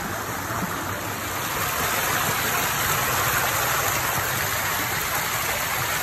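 Mountain stream rushing and splashing down over rock slabs in small cascades: a steady noise of flowing water.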